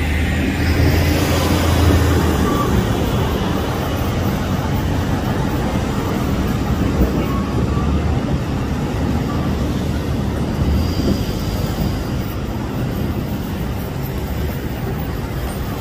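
City buses and car traffic moving off through an intersection: a steady low engine rumble with tyre and road noise, heaviest in the first couple of seconds.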